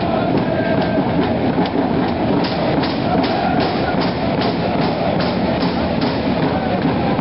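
Crowd of fans in an ice hockey arena chanting, with a steady rhythmic beat of about three a second setting in a couple of seconds in.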